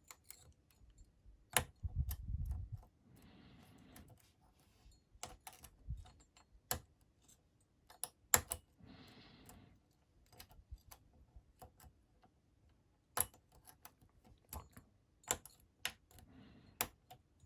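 Irregular small metal clicks of a lock pick and tension wrench working the pin stacks inside a Master Lock 410 padlock, as pins are pushed up and dropped after a lost false set. A couple of soft rustles come between the clicks.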